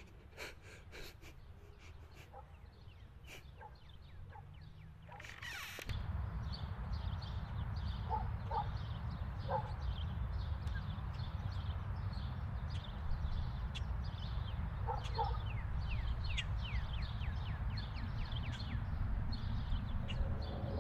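Small birds chirping with quick, falling calls, faint at first. From about six seconds in they sit over a steady low rumble of outdoor ambience. A few short, louder calls stand out in the middle.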